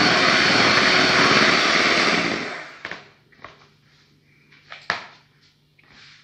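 Electric hand mixer running steadily as it beats a cream mixture, switched off about two and a half seconds in. A few light clicks and knocks follow.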